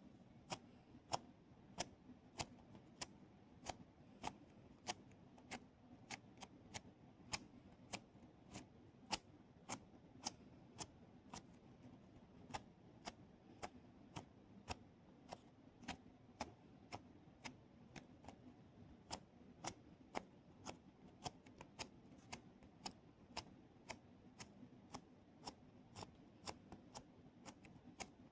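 Keyboard keys pressed one at a time, giving sharp single clicks about two a second at uneven spacing.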